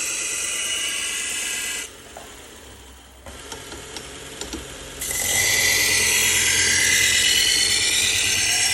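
Steel knife blade grinding against a worn 3M Cubitron belt on a belt grinder, a loud, shrill scraping. About two seconds in the blade comes off the belt and only the quieter running belt is heard, with a few light clicks. The blade goes back onto the belt about five seconds in and the grinding resumes.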